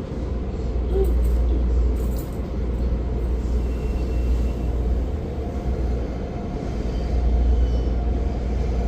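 Local commuter electric train pulling into the station: a steady low rumble with faint, thin whining tones above it.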